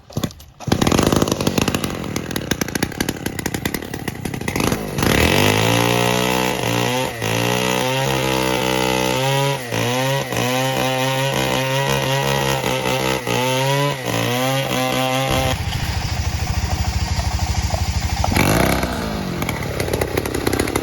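Small diesel engine, started by hand crank, running loud, its pitch wavering up and down through the middle before it settles into a steadier, rougher running.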